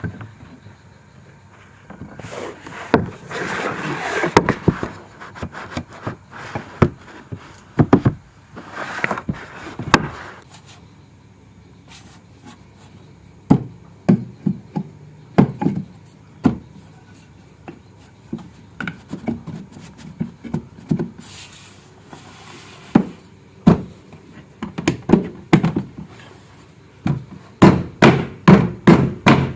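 Hand woodworking on wooden parts: scattered knocks and taps of wood on wood, with stretches of a rough noise of working the wood. Near the end comes a fast, even run of hammer strikes, about four a second, the loudest part.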